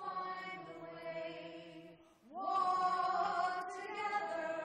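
Slow singing of a simple folk-song melody in long held notes. The phrase breaks off about two seconds in, and the next starts with an upward scoop into a held note.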